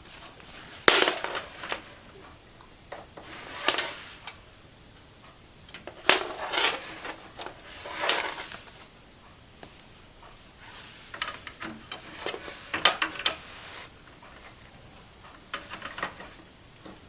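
Handling noise inside a desktop computer case: plastic and metal clicks, scrapes and rustles as a SATA cable and drive parts are worked into place, in scattered short bursts.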